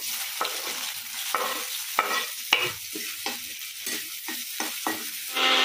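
Food frying and sizzling in a pan while a spatula stirs and scrapes it in repeated strokes. Near the end a loud electric motor, like a blender's, starts up and runs with a steady hum.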